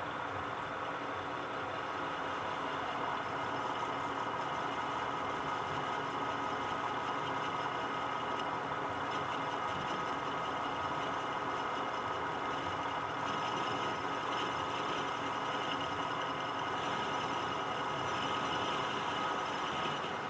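Metal lathe running steadily with a high whine, taking a light skim cut of about a thousandth off an aluminum shaft.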